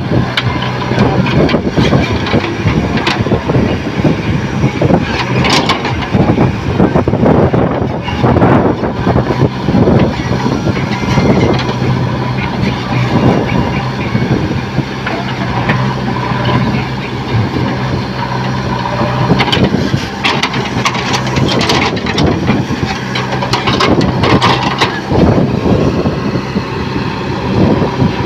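JCB 3DX backhoe loader's diesel engine running steadily under working load as the backhoe digs, with irregular knocks and scrapes from the bucket working in stony soil.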